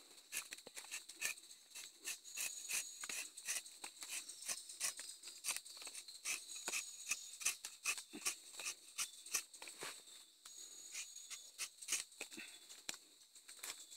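Rubber-tapping knife shaving a thin strip of bark along the tapping cut of a rubber tree: a run of short, irregular scraping clicks, several a second. A steady high insect buzz sounds behind it.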